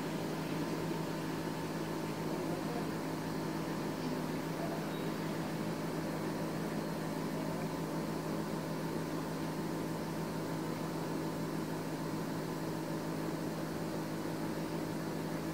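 Steady machine hum with several held tones over a light hiss, unchanging throughout.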